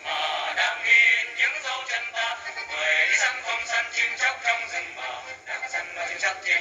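A small vocal group singing a Vietnamese revolutionary song with instrumental accompaniment.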